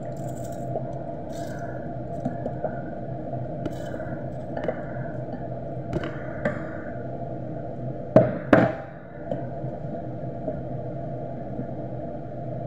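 A spoon stirring rice through broth in a pot, with small scrapes and clicks against the pot and two sharp knocks about eight seconds in, over a steady background hum.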